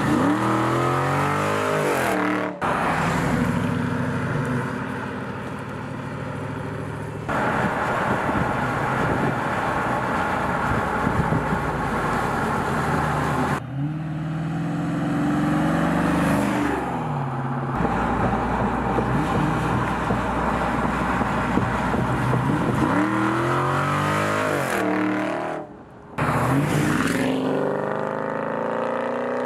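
Dodge Charger V8 accelerating hard, the revs climbing and dropping back through several upshifts, with steadier stretches of engine and exhaust sound in between. The sound breaks off briefly a few times where one pass cuts to the next.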